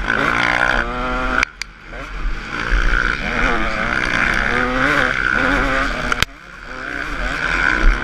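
Motocross bike engine revving hard, its pitch rising and falling through the gears. Twice, about one and a half and six seconds in, the throttle is chopped with a sharp knock and the engine drops away briefly before winding up again.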